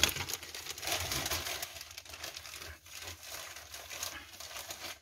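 Plastic packaging crinkling and rustling as it is handled, an irregular run of small crackles.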